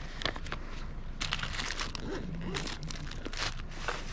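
Paper banknotes crinkling and a fabric waist pouch rustling as cash is sorted for change. It comes as a quick run of short rustles starting about a second in.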